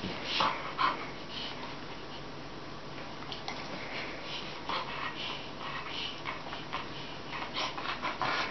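Two English bull terriers play-biting and gnawing at each other, with snuffling breaths and mouthing noises in short, irregular bursts, the loudest two in the first second.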